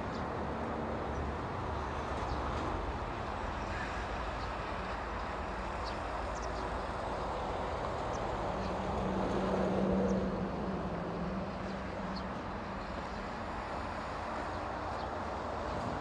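Steady outdoor rumble of traffic and wind, with a vehicle passing that is loudest about ten seconds in. A few faint, short, high chirps from the flock of small birds overhead.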